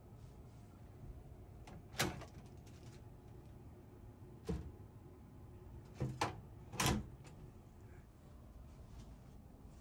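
About five sharp clicks and knocks of a fitting being handled, in the manner of a door or cupboard being worked, spread across a few seconds over a low, steady hum.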